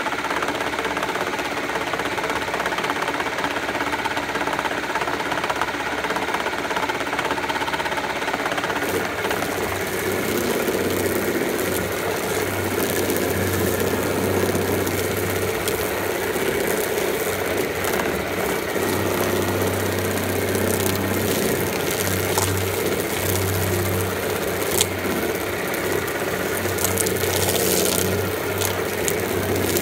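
Chicken plucking machine running, its spinning rubber fingers beating the feathers off a freshly scalded chicken. From about nine seconds in, a deeper hum comes and goes as the bird is pressed against the fingers.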